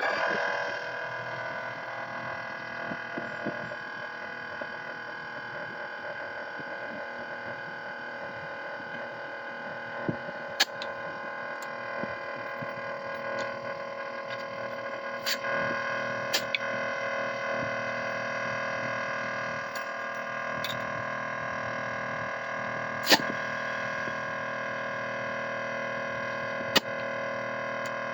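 VIAIR 12-volt on-board air compressor running with a steady, high-pitched whine that starts suddenly, while tire pressures are topped off. A few sharp clicks sound now and then over it.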